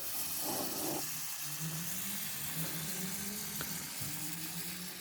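WD-40 aerosol can spraying in a steady hiss as the lubricant is run along the seams of squeaking laminate flooring. It starts abruptly.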